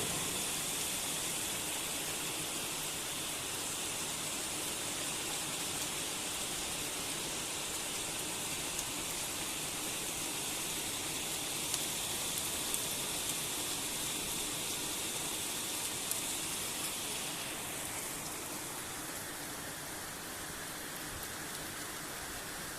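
Steady rain falling, with a few louder single drops standing out; it eases slightly near the end.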